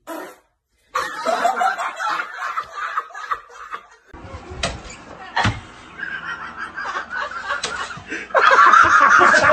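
A man laughing hard in long, loud bouts, with a couple of sharp knocks midway. A louder sound cuts in near the end.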